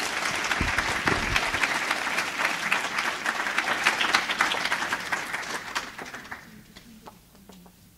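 Audience applauding, thinning out and dying away about six seconds in.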